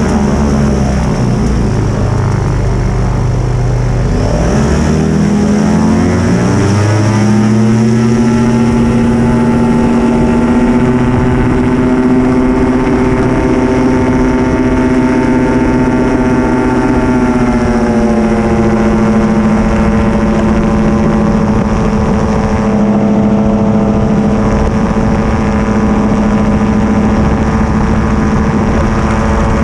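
Yamaha Phazer snowmobile engine driving the aircraft's propeller through a reduction gearbox, heard from on board: it runs up in pitch between about four and eight seconds in as the throttle opens for takeoff, then holds a steady high-power note, easing slightly lower about eighteen seconds in.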